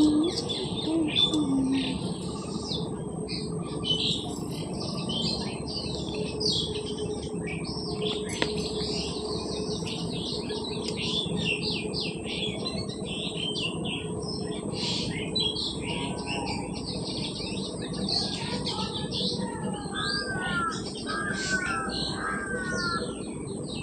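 A chorus of many birds chirping continuously, with a few clearer repeated calls near the end, over a steady background hiss.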